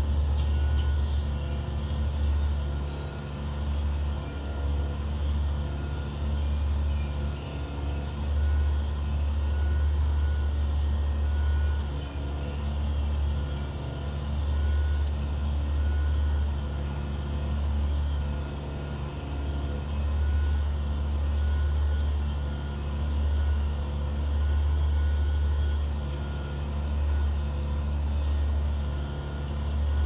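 Steady low mechanical rumble and hum that swells and eases every second or two, with a few faint higher tones over it.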